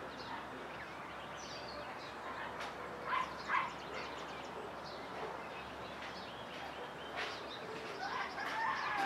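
Rural dawn ambience: birds chirping over a steady background hiss. A dog gives two short barks about three seconds in, and a rooster starts to crow near the end.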